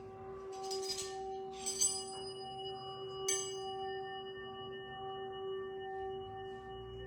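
Metal sound-healing instruments ringing: several steady, sustained tones hold throughout, while three bright strikes in the first half, the last about three seconds in, ring on and slowly fade.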